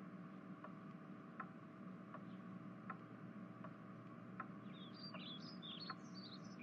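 Faint, regular ticking, about one tick every three-quarters of a second, over a low steady hum. Birds chirp in the last two seconds.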